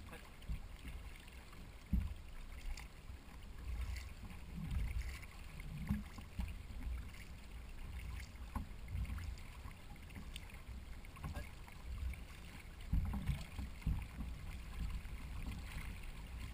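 Paddles working water alongside a racing canoe, heard from a camera on the boat: a steady low rumble of water and hull with irregular splashes and a few sharper knocks.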